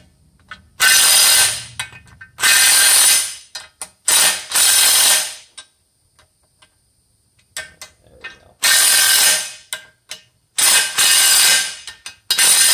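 Cordless power driver running the flex plate bolts into the crankshaft flange of a Cummins diesel and snugging them down. It comes in six short bursts of about a second each, with a pause of a few seconds midway.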